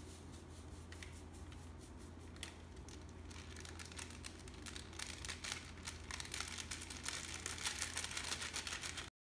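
Packet of caldereta seasoning mix crinkling and rustling as its powder is shaken out into a cooking pot. The rustle is sparse at first, then busier and louder from about three seconds in, and cuts off abruptly near the end. A steady low hum runs underneath.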